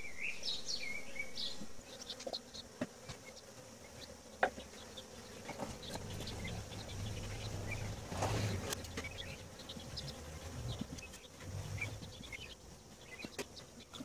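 Honeybees buzzing around an opened Langstroth hive, the hum swelling in the middle, with scattered light knocks and clicks of the wooden frames and hive boxes being handled.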